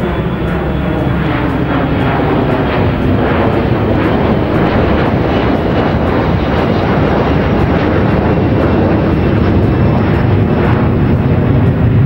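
Sound-effect recording of an airplane flying by: a steady, low-heavy engine rumble that grows slightly louder, played back from the computer.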